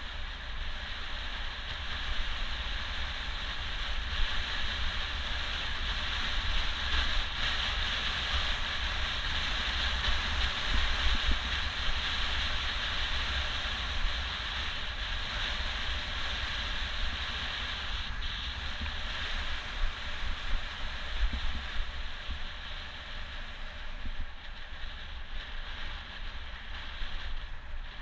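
Wind buffeting the microphone of a camera on a moving bicycle: a steady low rumble with a constant rushing hiss over it.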